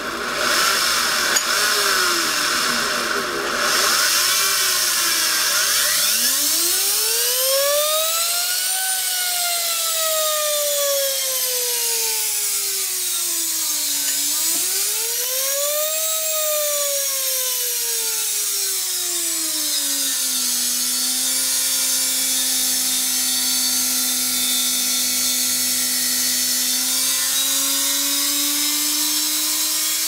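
Vacuum-cleaner universal motor running unloaded, its speed set by a variac. Its whine rises and falls twice as the voltage is turned up and down, holds steady for several seconds, then starts climbing again near the end as it is pushed toward overspeed.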